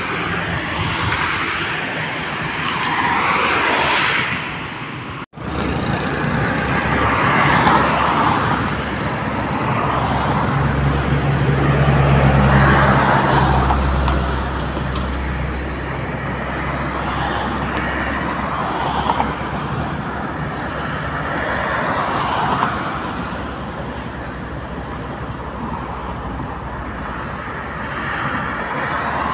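Road traffic passing on an expressway: cars go by in repeated swells of tyre and engine noise. A heavier vehicle's low, steady engine drone passes through the middle. The sound cuts out for an instant about five seconds in.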